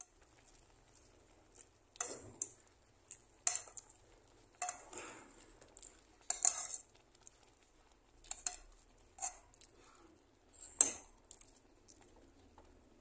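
A spatula scraping and knocking against a frying pan while stirring shrimp and vegetables, in short irregular strokes about a second apart, the loudest near the end.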